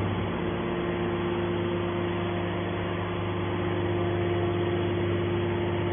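Hydraulic scrap metal baler's power unit, an electric motor and hydraulic pump, running with a steady hum and a constant whine.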